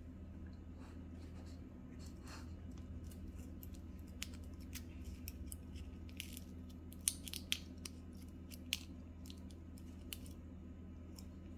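Foil sweet wrapper crinkling and crackling as it is peeled open by hand: a run of irregular sharp crackles, the loudest a little past the middle, over a steady low hum.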